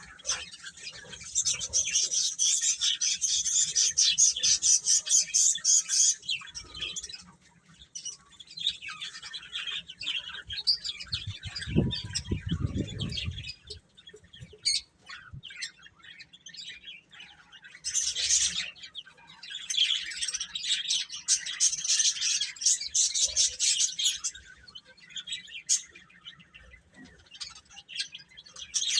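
A group of baby chicks peeping, coming in dense spells of rapid high chirps with quieter stretches between. A short low rumbling noise comes in about twelve seconds in.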